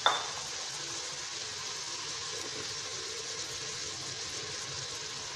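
Chicken pieces and onion sizzling steadily as they fry in oil in an aluminium pot, with one short knock right at the start.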